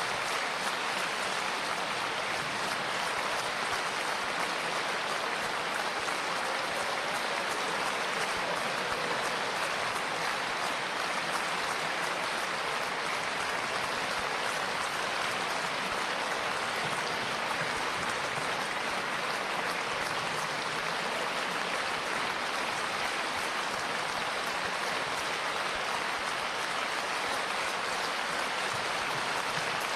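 Large concert audience applauding, a steady, unbroken ovation.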